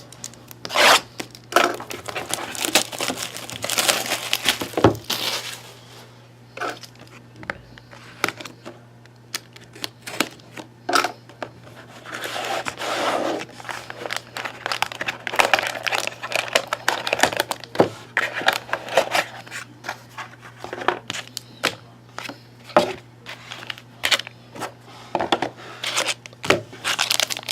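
Plastic wrapping crinkling and tearing as a sealed trading-card box is opened and the card pack handled, with irregular crackles and light taps, over a steady low hum.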